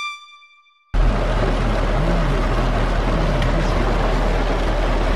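A brass jingle fades out, then about a second in a loud, steady rushing noise with a deep rumble starts abruptly: heavy rain on a car, heard from inside the cabin.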